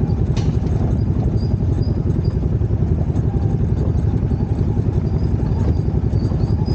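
Off-road vehicle engine running steadily while driving. It gives a continuous low pulsing drone with a faint wavering whine above it.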